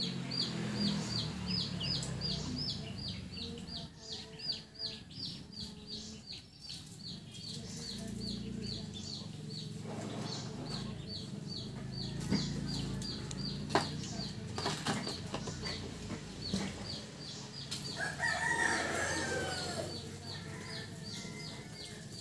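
A bird peeping over and over, a steady run of short, high, falling peeps about three a second. Around three quarters of the way in a lower, fuller call, like a hen's cluck, sounds briefly over it, with a low steady rumble underneath throughout.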